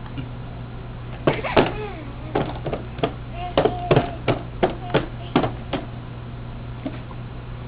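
A person making a quick string of short, sharp mouth and voice noises, about a dozen in under five seconds, with a few brief pitched sounds among them. A steady low hum runs underneath.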